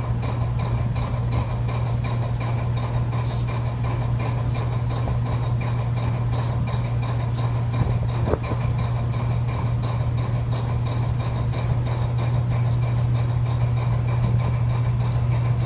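GE U23B locomotive's V12 diesel engine (GE FDL-12) running steadily with a constant low hum, with sharp ticks every second or so.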